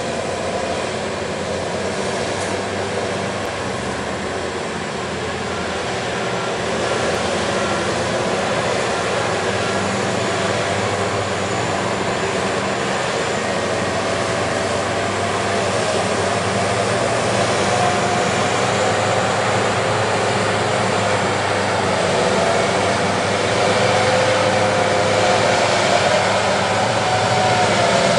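Engines of a Liebherr 996 mining excavator and a Caterpillar 769 haul truck running steadily under load. A whine that wavers in pitch rises over the din in the second half.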